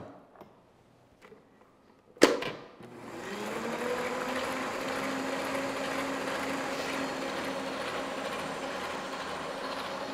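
Arno stand mixer: a sharp click about two seconds in, then its motor spins up, rising in pitch for about a second, and runs steadily with the beaters whisking a thin cake batter.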